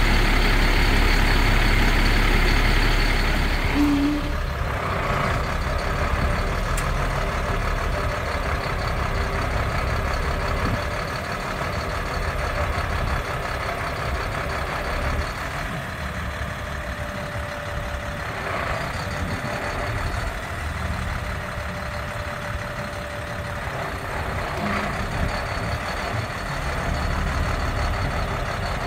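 Boom truck's diesel engine running with its hydraulic system working the outriggers and aerial boom. A heavy steady hum in the first few seconds gives way to quieter steady running, with a faint steady whine partway through.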